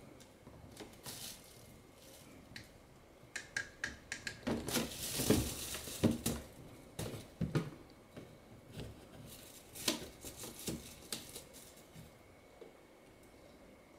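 A cat rummaging in a clear plastic storage box of toys: a run of clicks, knocks and rustles of plastic, thickest from about four to seven seconds in and dying away near the end.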